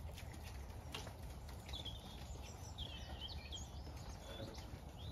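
Sheep feeding at metal troughs, heard as a few faint soft clicks and knocks over a low rumble. Small birds chirp faintly in the background from about two seconds in.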